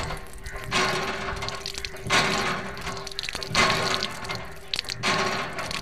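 Water pouring and splashing onto a small toy tractor in repeated bursts, about every second and a half, over background music with a steady tone.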